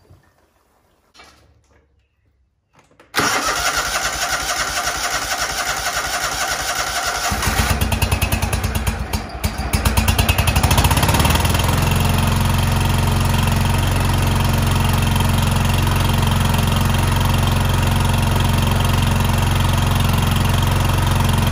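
Kohler 24 hp V-twin lawn tractor engine being cranked by its starter about three seconds in, catching after a few seconds of cranking, stumbling briefly, then settling into a steady run. It is running on fuel from a newly fitted fuel tank.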